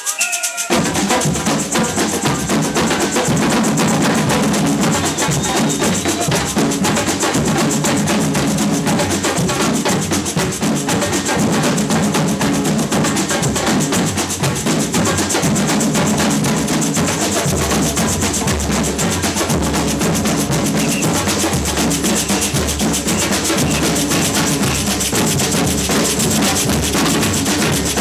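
Samba batucada percussion band drumming, with dense, driving rhythms on deep bass drums and snares. The full band comes in just under a second in and keeps up a steady loud groove.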